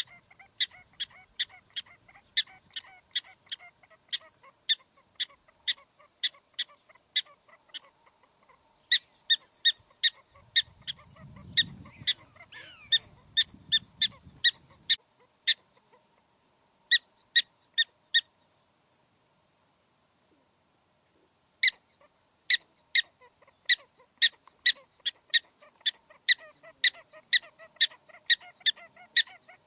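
Prairie dog calling: a long run of short, high-pitched chirping calls, about two a second, in bouts with a pause of a few seconds about two-thirds of the way through.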